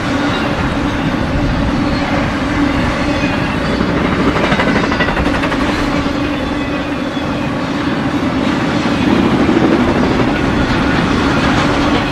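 BNSF intermodal freight train of spine cars carrying semi trailers rolling past: loud, steady rumble of steel wheels on the rails with a constant low hum running through it.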